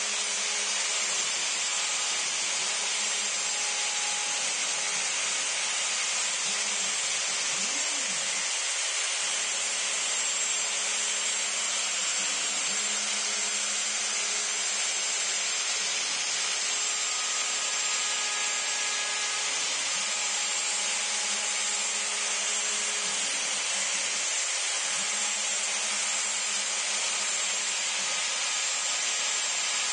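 CNC wood router running steadily, its 90-degree V-bit engraving letters into a cedar fence board. There is a steady high whine over the hiss of the cutting, with brief low rising-and-falling tones every few seconds.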